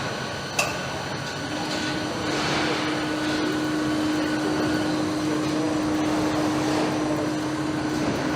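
Car-factory assembly-line ambience: steady machinery noise, with one sharp click under a second in and a steady hum that starts about a second and a half in and stops near the end.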